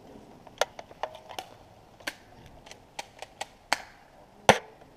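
Airsoft gun shots: a dozen or so sharp clicks and snaps fired at an irregular pace, the loudest about four and a half seconds in, with a dull thump.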